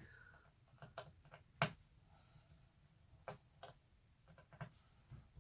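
Scattered light clicks and taps from handling small laptop parts and screws during a screen replacement, the loudest about one and a half seconds in.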